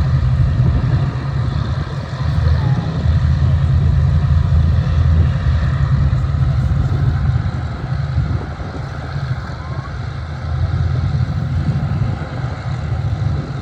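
Hawker Hurricanes' Rolls-Royce Merlin V12 piston engines running at low power as the aircraft taxi, a steady deep drone that swells and eases.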